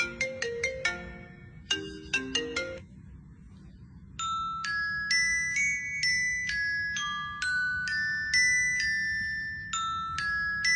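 Mobile phone ringtone playing: a fast, repeating pattern of short plucked notes that stops about three seconds in, then after a short pause a slower melody of held, high chime-like notes.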